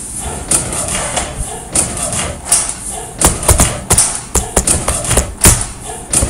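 A rapid, irregular run of thumps and knocks, someone tumbling down concrete stairs, growing denser from about three seconds in.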